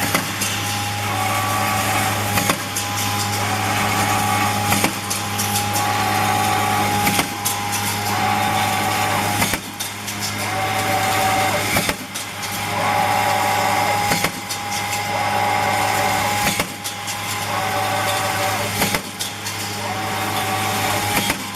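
CNC wire straightening and cutting machine running in a repeating cycle: a steady low hum, a whine that comes and goes, and a sharp clack about every two and a half seconds.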